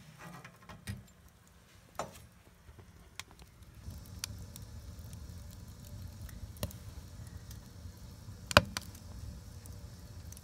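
Wood fire in a wood-burning tent stove crackling, with scattered sharp pops, the loudest about eight and a half seconds in, over a low steady rumble that starts about four seconds in.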